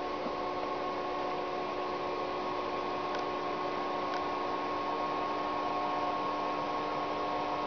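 Amateur radio receivers on the ISS 145.800 MHz FM downlink hissing steadily, with a few faint steady tones under the hiss. The ISS has stopped transmitting while the school sends its question, which these receivers cannot pick up.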